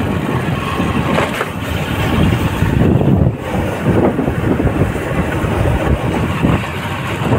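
Motorcycle running along a rough road: a steady, fluctuating low rumble of engine and road noise.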